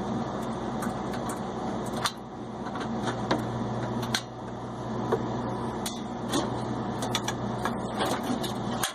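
The stove's gimbal locks being unscrewed: scattered light clicks and taps of the tool on the screws and metal, over a steady low hum that stops suddenly near the end.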